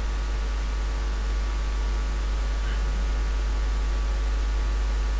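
Steady electrical hum with an even hiss: the recording's background noise, with no distinct sound event.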